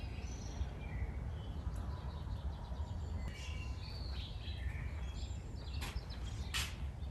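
Outdoor ambience: small birds chirping on and off over a steady low rumble, with two short clicks near the end.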